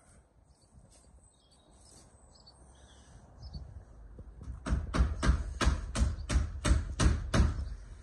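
Hammer blows on the timber of a wooden shed: about nine steady strikes, roughly three a second, starting a little past halfway. Faint bird chirps come before them.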